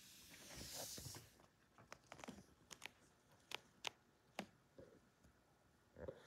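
Faint sounds of a cat playing under a couch: a soft rustle of fur and fabric, then scattered light clicks of claws and paws on the hardwood floor.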